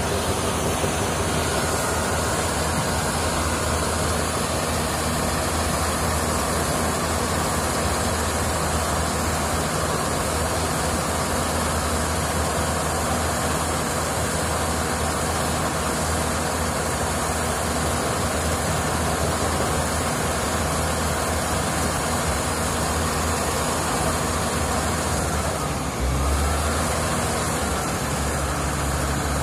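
Diesel engines running steadily: the tractor powering a tractor-operated transit mixer, together with a concrete pump, in a dense, even drone with a low hum. The deeper hum grows louder near the end.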